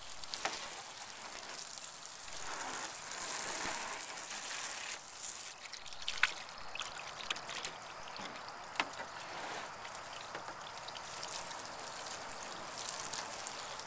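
Water running from a garden hose and splashing over a gutted catfish on a wooden cutting board, rinsing it clean, with a couple of light knocks along the way.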